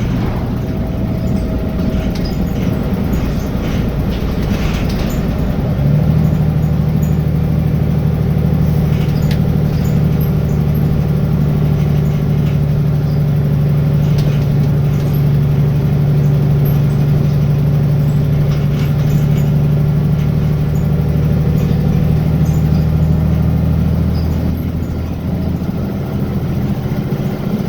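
Wright Gemini 2 double-decker bus on a VDL DB300 chassis heard from on board: the engine's drone steps up about six seconds in and holds steady under load, then drops back near the end. A few faint clicks sound here and there.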